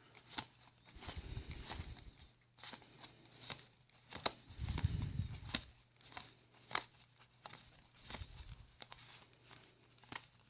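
Magic: The Gathering cards being handled and flipped through: irregular light clicks and snaps of card stock, with a few low thuds of handling.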